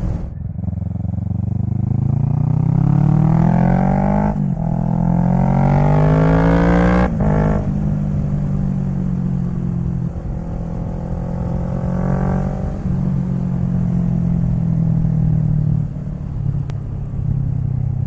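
Kawasaki Z650's parallel-twin engine accelerating, rising in pitch through two upshifts about four and seven seconds in, then running at a steady cruise. It eases off briefly near the end.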